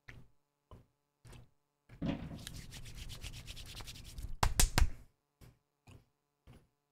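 Hands rubbing together briskly for about three seconds, with a few sharper, louder strokes near the end. Short faint chewing sounds come before and after.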